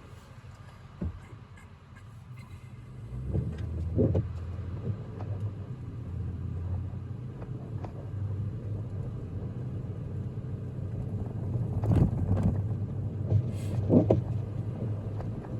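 A car driving on a snowy road, heard from inside: engine and tyre rumble that comes up about three seconds in as the car gets moving, with a few thumps along the way.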